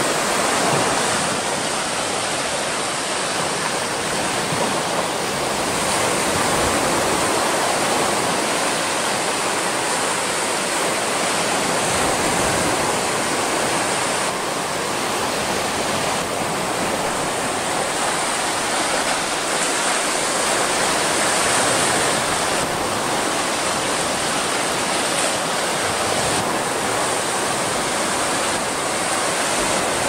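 Steady rush of moving water, a continuous even noise with slight swells in level.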